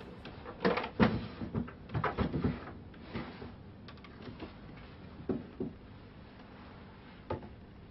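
Wooden chest of drawers being opened and rummaged through: a quick run of knocks and clunks for the first couple of seconds, then a few scattered ones as things are lifted out.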